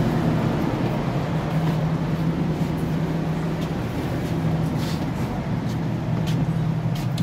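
Steady low mechanical hum inside a passenger train carriage, with a few light knocks in the last couple of seconds.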